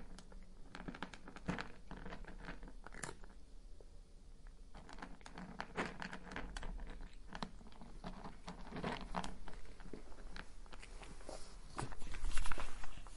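A cat chewing dry kibble: irregular crunches and bites, louder near the end.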